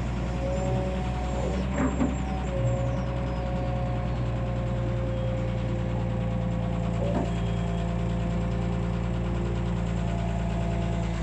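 Excavator's diesel engine running steadily under a thin whine that drifts slowly in pitch, with a couple of short knocks.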